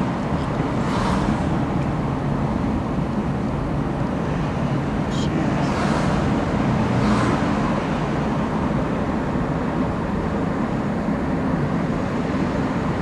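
Steady road and engine rumble heard from inside a moving car's cabin, with faint swishes of oncoming cars going past about a second in and again around six to seven seconds in.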